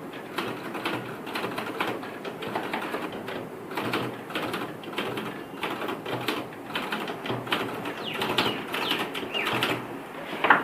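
Typewriter keys striking in an irregular run of sharp clacks, with a louder strike near the end.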